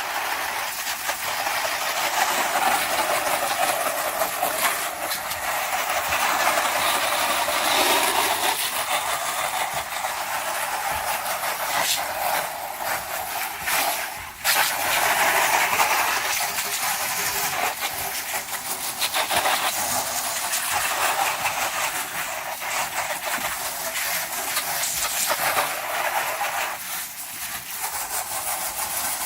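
Garden hose spraying water onto vinyl house siding: a steady hiss of spray, briefly broken off about halfway through.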